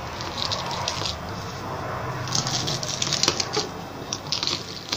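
Hard unripe green grapes (koruk) being crushed in a bowl with the base of a glass: irregular wet squashing and crunching, with small clicks of glass against the bowl.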